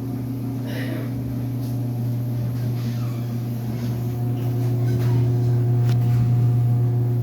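Clothes dryer running with a loud, steady low hum, growing a little louder about five seconds in, with a few faint ticks. The cause of the noise is unknown.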